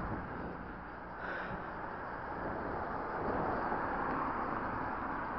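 Steady rush of wind and road noise from riding a bicycle along a street, picked up by a camera mounted on the bike.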